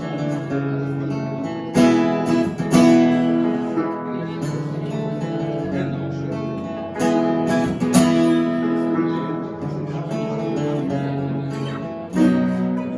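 Two acoustic guitars strumming chords in an instrumental break of an Americana song. Hard, accented strums land about two and three seconds in, again around seven and eight seconds, and near the end.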